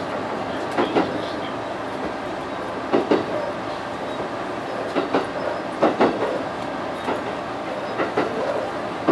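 Train wheels clacking over rail joints and points, in pairs of sharp clacks every second or two, over a steady running rumble as the train runs in to its station stop.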